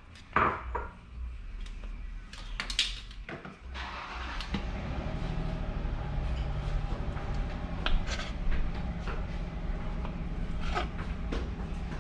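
A few sharp knocks of a knife striking a cutting board while slicing hot dogs. About four seconds in, a steady low rumble sets in and runs underneath, with a few light clicks.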